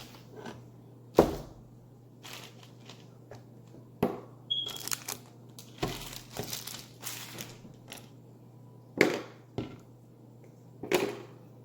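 Hands squishing and handling cloud slime, with scattered crinkles, squelches and knocks at irregular moments, the sharpest about a second in, over a faint steady low hum.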